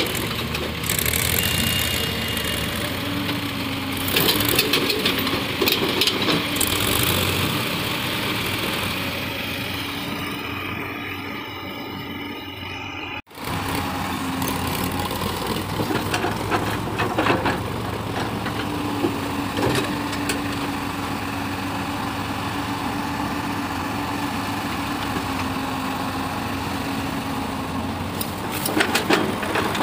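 L&T-Komatsu crawler excavator's diesel engine running steadily with a hydraulic whine, broken by short clatters of soil as the bucket digs and dumps into the trolley.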